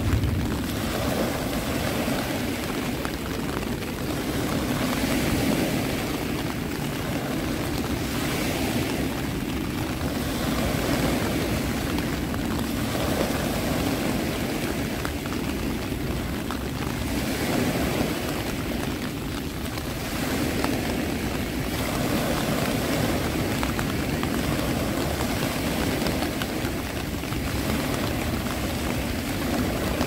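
Ocean surf: a steady rushing wash of waves that swells and ebbs every few seconds.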